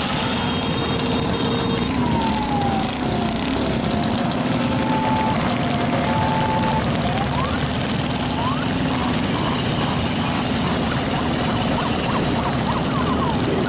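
A vehicle's engine running at a steady speed under heavy rushing wind noise while driving, with a constant low drone. Short high chirping sweeps come and go in the second half.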